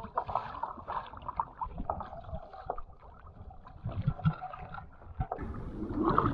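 Small waves lapping and sloshing against a plastic sit-on-top kayak as it is paddled across choppy water, with irregular little splashes and drips. It grows louder near the end.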